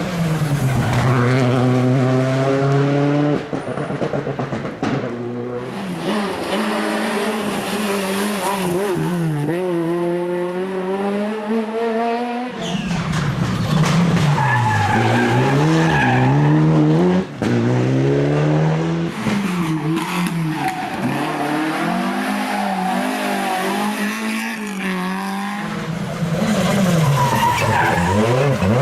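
Rally cars driven hard, engines revving up and dropping back repeatedly through gear changes, with tyres squealing. The sound changes abruptly twice.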